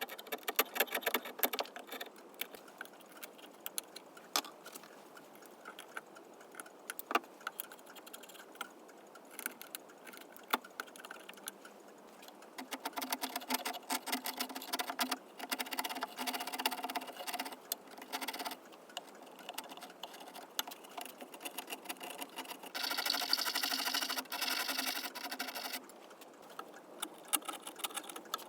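Workshop handling noise: scattered clicks and knocks. A small power tool runs for a few seconds midway, with a steady hum, and again near the end with a louder, hissier sound.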